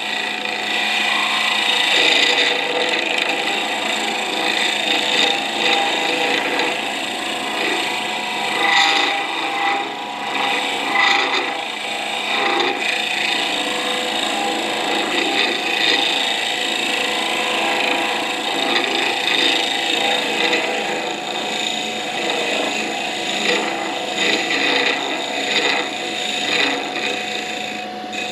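Wood lathe running, a steady motor hum, while a tool works the spinning wooden pen blank with a rough, uneven scraping rasp.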